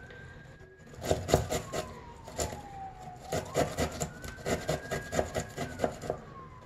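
Fresh ginger root scraped over a hand grater in repeated rasping strokes, about two to three a second, starting about a second in. A faint siren wails slowly up and down in the background.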